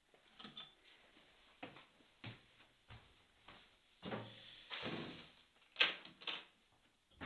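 Handling sounds on a tiled kitchen counter: a few knocks in the first three seconds, a plastic grocery bag rustling about four seconds in, then two sharp clacks near the end as a phone and a small object are set down on the tile.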